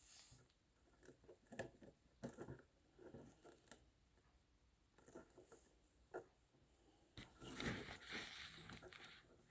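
Faint, scattered small clicks and rustles of hands handling craft materials, with a longer rustle near the end.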